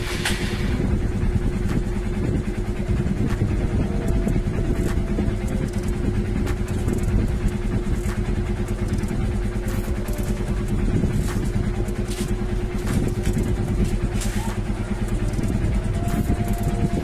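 Motorcycle single-cylinder engine idling steadily, just started on one press of the electric starter with a newly fitted TMX PC27 carburettor, no longer hard starting.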